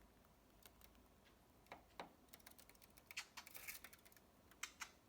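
Budgerigar making soft, irregular clicks with a few faint chirps, thickest about three seconds in.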